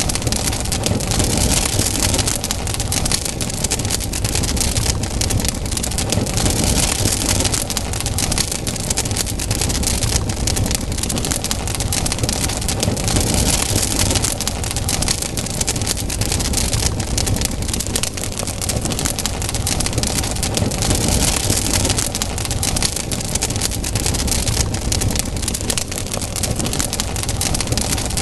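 Wood campfire burning with dense, constant crackling and small pops over a steady low rumble.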